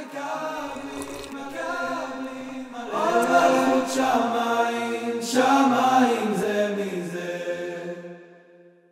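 Closing bars of a sung song: voices drawn out over long held notes with accompaniment, fading out near the end.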